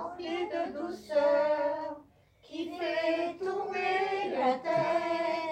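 A woman singing unaccompanied, a single voice holding notes in short phrases with a brief pause for breath partway through.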